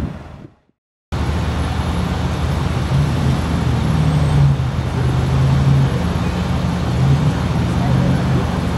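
A vehicle engine running steadily with a low hum, under even traffic-type noise. It starts abruptly about a second in, after the previous sound fades to a moment of silence.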